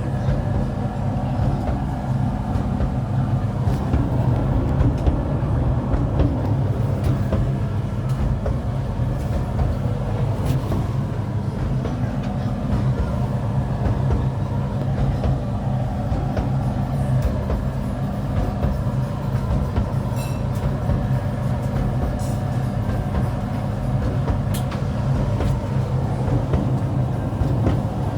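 Hoover H-Dry 600 heat pump tumble dryer running near the end of its Extra Dry cycle. It gives a steady low hum with the rumble of the tumbling drum and a few faint clicks.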